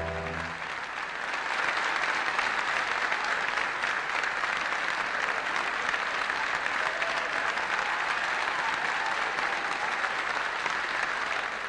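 The last chord of the acoustic guitars rings and stops about half a second in, then an audience applauds steadily.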